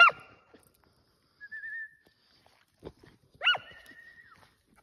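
Hunting dog giving two short, sharp yelps, one right at the start and another about three and a half seconds later, with a thin whine after the second.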